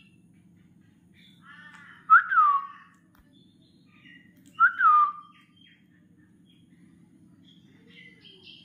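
Pet parrot giving two loud whistled calls about two and a half seconds apart, each a quick rise in pitch then a falling glide, with softer chirps before them.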